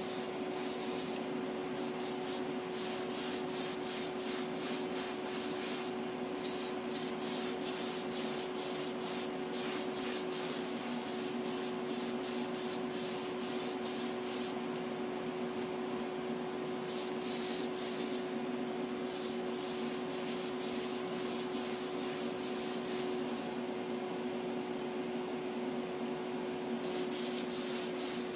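Airbrush spraying paint, a hiss that comes and goes many times as the trigger is worked, over a steady electric hum.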